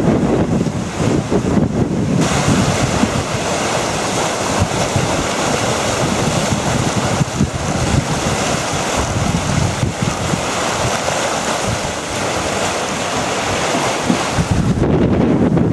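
Bow wave of a pilot cutter sailing fast, water rushing and breaking along the hull, with wind buffeting the microphone. The wind buffeting is heavier for the first couple of seconds and again near the end, while the hiss of the water is strongest between.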